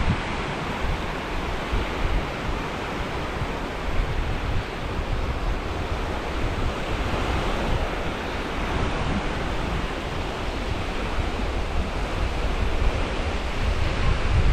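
Sea waves washing onto the beach in a steady surf, with a very strong wind buffeting the microphone as a low rumble.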